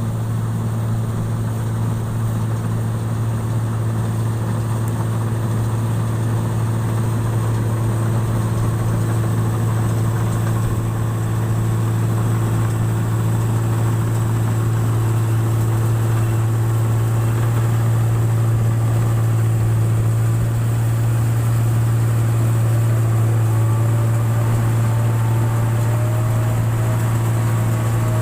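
Engine-driven rice-processing machine running steadily with a constant deep hum, getting slightly louder partway through.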